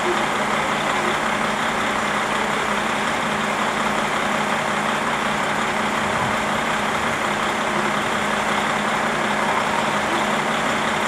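KiHa 40 diesel railcar's underfloor engine idling steadily while the car stands still, with an even hum and no change in speed.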